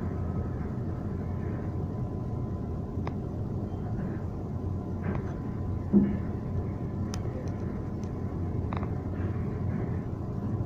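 Demolition machinery running with a steady low rumble, with scattered knocks and clanks and one louder thump about six seconds in.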